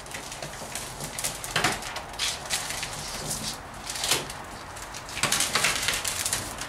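Protective paper being peeled off a polycarbonate sheet: a run of uneven rustling, tearing strokes, loudest about five seconds in.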